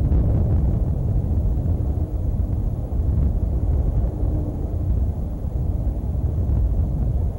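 Wind buffeting an outdoor nest-cam microphone: a steady low rumble.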